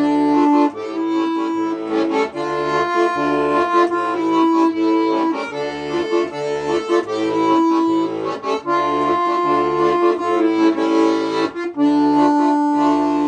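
Accordion playing an instrumental tune: a melody line over an evenly pulsing bass-and-chord accompaniment, settling onto a long held chord near the end.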